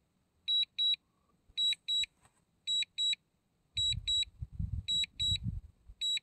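DJI Mini 2 remote-control alarm sounding high double beeps about once a second, the low-battery return-to-home alert while the drone flies itself home. A low rumble joins about four seconds in.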